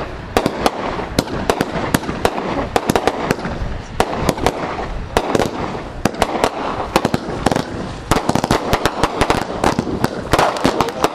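'Stinking Rich' multi-shot aerial fireworks item firing: a dense, continuous string of sharp bangs and crackles from shots launching and bursting overhead.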